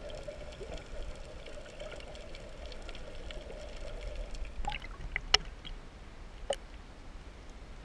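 Muffled underwater gurgling and sloshing against an action camera's housing, then a few sharp splashes and drips about five seconds in as the camera breaks the surface, followed by a quieter hiss.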